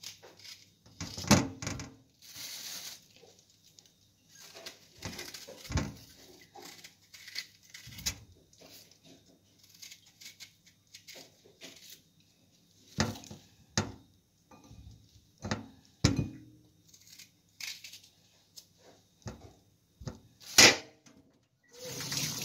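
Irregular clicks and knocks of a small knife cutting through guava and pieces and utensils knocking against a ceramic bowl, the loudest knock about 21 s in. Near the very end a kitchen tap starts running.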